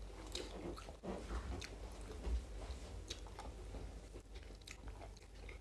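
Close-up eating sounds: people chewing rice and snakehead fish curry eaten by hand, with irregular soft clicks and mouth smacks.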